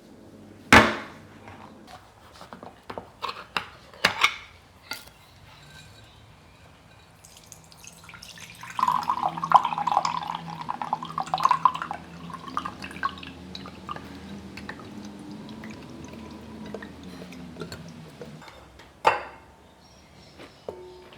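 Kitchen preparation sounds: a few sharp knocks of dishes or utensils, and in the middle a stretch of liquid being poured or dripping into a container, loudest for the first few seconds of it.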